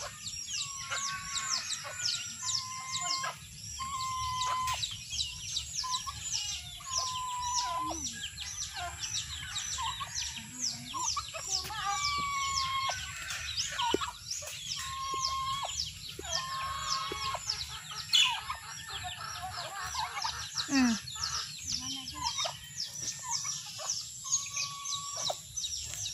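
Chickens clucking, with short drawn-out hen calls every second or two, over a dense, continuous chatter of small birds chirping rapidly.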